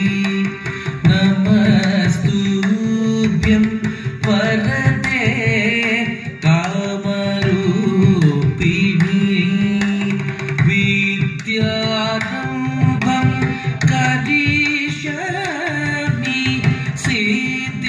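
Carnatic-style Bharatanatyam dance music: a singer's melody over a steady drone and a hand-drum rhythm.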